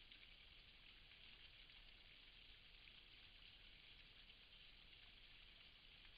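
Near silence: a faint, steady hiss, the self-noise of a trail camera's microphone.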